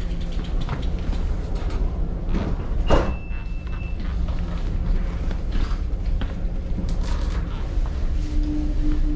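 Inside an S-train carriage: a steady low rumble with scattered knocks, clicks and rattles from bicycles being wheeled in and parked. A short high beep sounds about three seconds in, and a lower steady tone comes near the end.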